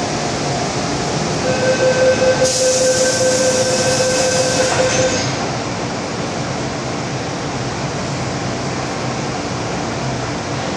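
MTR Island Line M-Train running, heard from inside the carriage as a steady rumble and rush. From about one and a half seconds in, a steady wheel squeal rides over it for about three and a half seconds, joined partway through by a loud hiss, and then the plain running noise continues.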